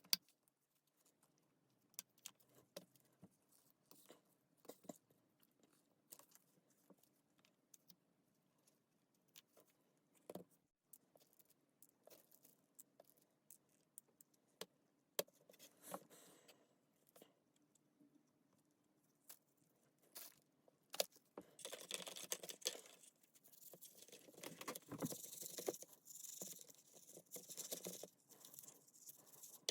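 Scattered small clicks and taps of metal parts and tools being handled during work on a cordless drill, with a busier stretch of scraping and rustling over the last third.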